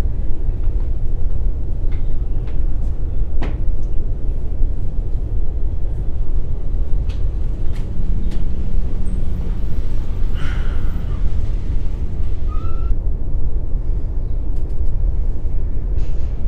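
Steady low rumbling noise with a few faint clicks, and a brief clatter about ten seconds in.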